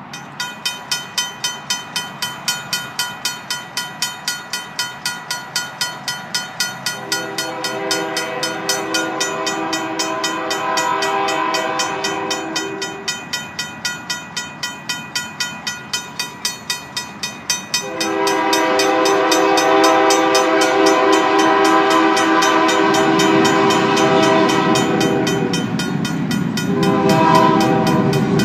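Railroad crossing's RACO mechanical bell ringing about twice a second, joined by a Union Pacific GP40-2 locomotive's multi-note air horn blowing long blasts for the crossing: one about 7 s in, a longer one about 18 s in, and another starting near the end. The low rumble of the approaching train grows from about 22 s in.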